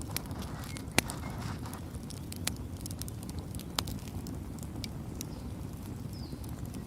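Campfire burning: a steady low rumble of flames with irregular sharp crackles and pops from the burning wood, the loudest pop about a second in.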